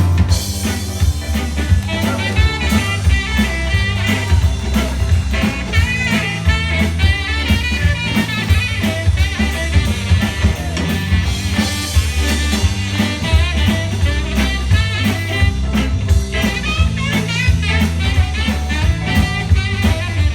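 A live rock-and-roll band playing an instrumental break: a steady drum beat and bass under a soloing lead line with bending, wavering notes.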